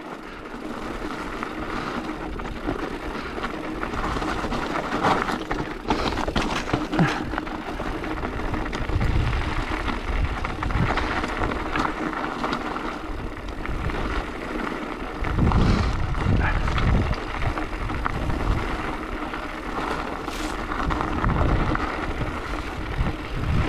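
Mountain bike riding down a rocky trail: tyres rolling over loose stones with a steady clatter of knocks and rattles, and wind rumbling on the microphone, heaviest in gusts about two-thirds of the way in and near the end.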